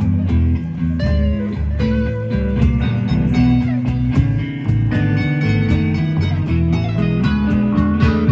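Live rock band playing an instrumental jam: electric guitars with a lead line of bent notes over bass and steady drums and cymbals.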